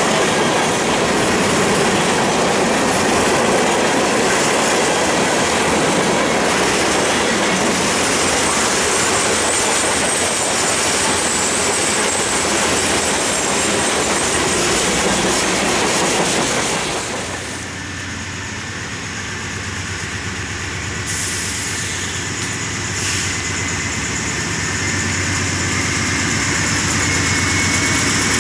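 Freight cars rolling past over the rails, a dense steady rumble of wheels on track. About two-thirds of the way through it cuts to the steady low drone of an approaching Norfolk Southern GE Dash 9-44CW diesel locomotive's 16-cylinder engine, growing louder as the train nears.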